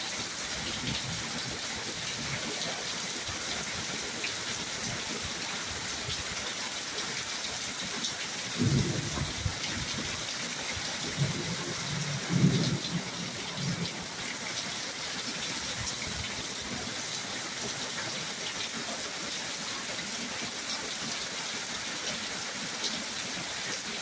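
Steady heavy rain falling in a thunderstorm, with low rumbles of thunder about nine seconds in and again around twelve seconds in, the second one louder.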